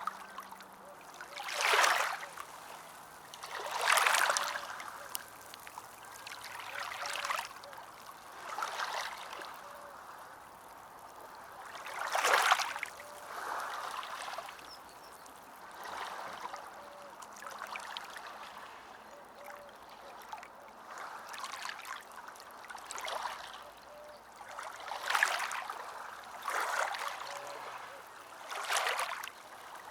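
Ocean waves washing in, a surge of water every two to three seconds over a steady hiss, the strongest about 2, 4 and 12 seconds in.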